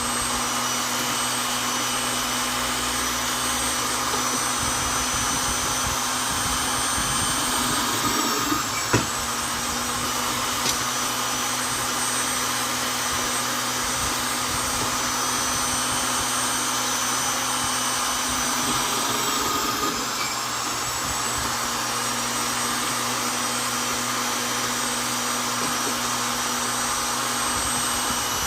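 Vonder electric drill running steadily, boring into wood. Its whine sags briefly in pitch twice, about a third of the way in and again past the two-thirds mark, with a couple of small clicks after the first sag.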